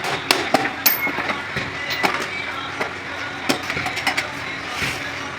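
Sharp taps of hand tools during clutch plate repair work: three in quick succession in the first second and one more about three and a half seconds in, over steady background noise.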